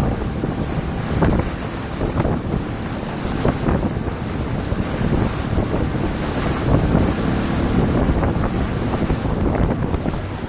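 Wind buffeting the microphone aboard a rigid inflatable boat running at speed, with the steady rush of spray and water from its wake.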